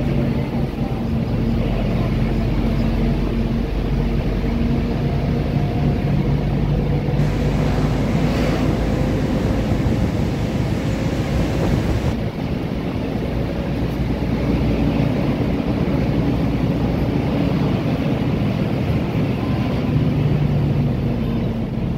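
Volvo B12BLEA articulated bus under way, its engine running and its pitch rising and falling a few times, with the loud radiator fan running over it. A brighter rushing noise joins in for several seconds in the middle.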